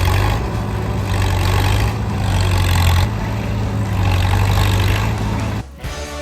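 Bulldozer's diesel engine running hard with a deep hum, its level rising and easing as it works, cutting off abruptly near the end.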